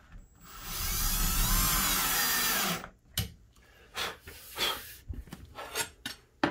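Cordless drill driving a Euro screw through a drawer slide into the cabinet side. It runs for about two and a half seconds with its motor pitch wavering, then stops. A few light clicks and knocks from handling the drill and slide follow.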